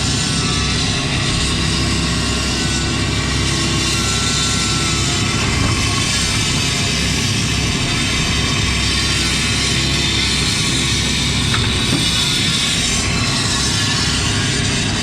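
Excavator's diesel engine running steadily under load while the machine digs, with short wavering whines rising over it twice.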